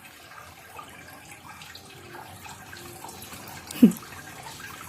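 Water running steadily in the background, with one short, loud cry falling in pitch near the end.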